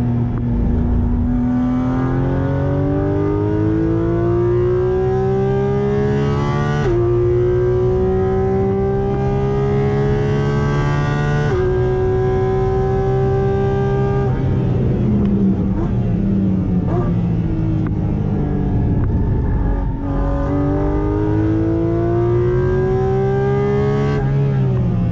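Porsche 718 Cayman GT4 RS's naturally aspirated 4.0-litre flat-six, heard from inside the cabin, revving up hard through the gears with two quick PDK upshifts, each a sudden drop in pitch. It then falls away under braking with downshifts before rising again under power, with another drop in revs near the end.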